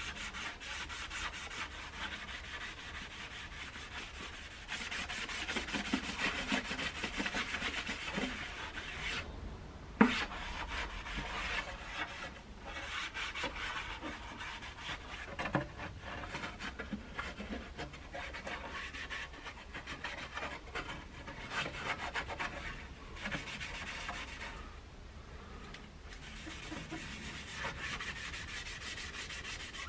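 Cloth rag rubbing a coat of wood finish into the top of a wooden radio cabinet, in uneven back-and-forth wiping strokes that come and go. A single sharp knock about ten seconds in.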